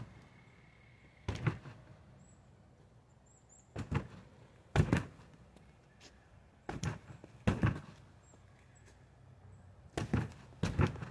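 Arm and forearm strikes landing on a wrapped freestanding punching bag: seven dull thuds, coming singly and in quick pairs, with gaps of a second or two between.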